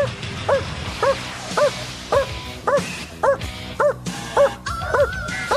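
Dog barking steadily at the helper in the blind, about two barks a second: the bark and hold of protection training, the dog guarding the helper by barking rather than biting.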